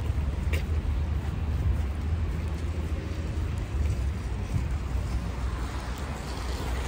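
City street ambience: a steady low rumble of road traffic with no distinct events.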